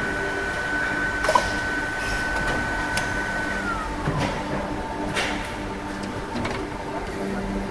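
Hydraulic plastic injection moulding machine running through its cycle: a steady high whine drops to a lower pitch about four seconds in as the mould moves to close. A few sharp metallic clicks and clanks come from the moving mould and clamp.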